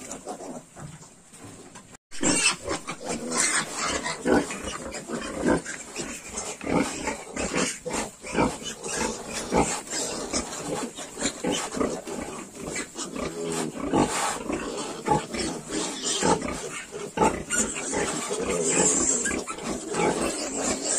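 A Yorkshire sow and her 22-day-old piglets grunting and squealing as the litter suckles. A dense run of short calls that starts abruptly about two seconds in and carries on busily.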